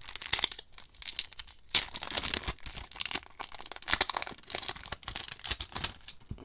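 Foil wrapper of a Magic: The Gathering booster pack being torn open and crinkled by hand: an irregular run of sharp crackles and rustles.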